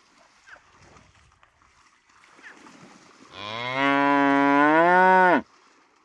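Water buffalo mooing once, a loud call of about two seconds starting just past the middle, its pitch rising toward the end before it cuts off suddenly.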